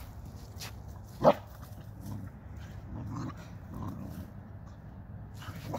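Two dogs play-fighting on dry leaves, with one short, loud bark about a second in and quieter scuffling sounds after.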